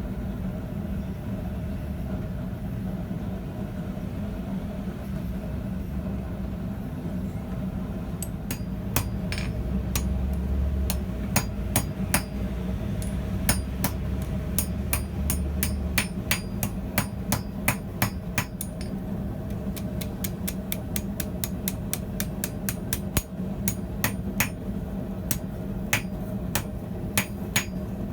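Blacksmith's hammer striking hot steel on an anvil to forge a door pull. The blows start about eight seconds in, slow and uneven at first, then come quicker at about three a second from around twenty seconds. A steady low hum runs underneath.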